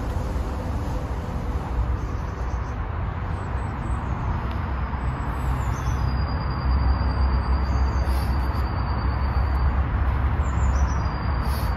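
Steady outdoor background noise with a heavy low rumble that grows louder about six seconds in, and a faint thin high tone and a few short high chirps over it in the second half.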